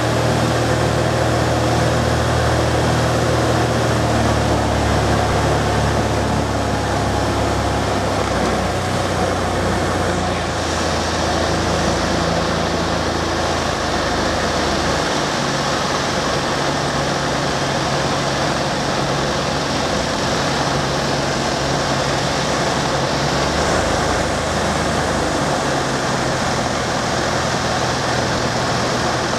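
Jabiru 430 light aircraft's six-cylinder engine and propeller droning steadily in the cockpit over a loud rush of airflow, on final approach to land. The engine note shifts a few times, about ten and fifteen seconds in and again later, as power is changed on the approach.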